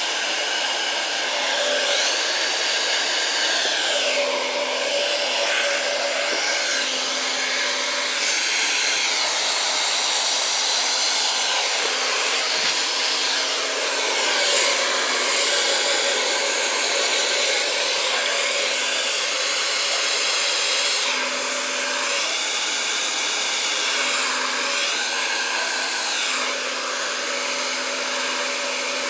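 Handheld hair dryer blowing steadily while drying hair, the airflow's tone shifting every few seconds as the dryer is moved around the head.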